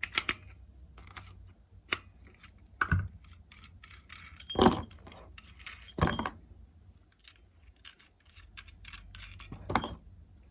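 Metal fittings and tools being handled: a run of small clicks and clinks, with a few louder knocks, two of which ring briefly, as pipework is made up.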